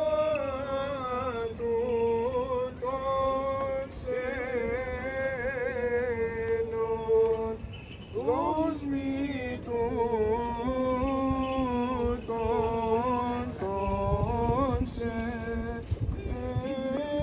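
Greek Orthodox Byzantine chant sung by a man's voice, holding long notes with ornamented turns in the melody.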